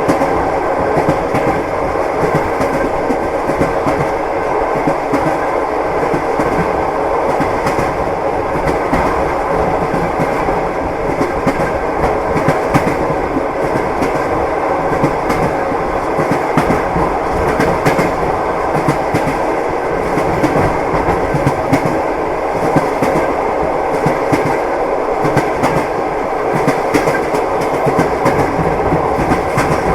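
Train running on rails, its wheels clacking over the rail joints in a steady loud rumble, with short clicks throughout.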